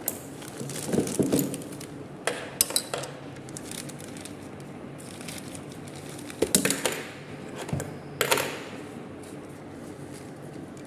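Metal parts of a hand-held grease gun clinking and knocking against each other and a wooden table as it is handled and set down, in about four short bursts of clatter.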